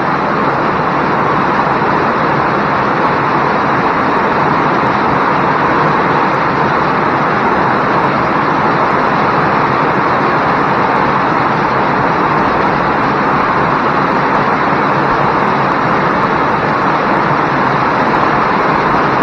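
Heavy rain falling: a steady, unbroken hiss that holds at an even level throughout.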